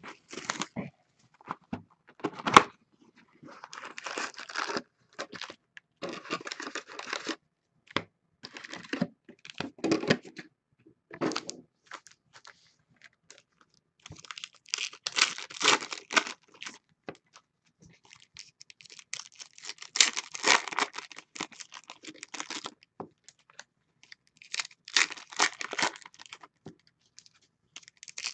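Plastic wrap and foil trading-card packs crinkling and tearing as a card box is unwrapped and its packs handled and torn open, in irregular bursts a second or two long. One sharp snap about two and a half seconds in.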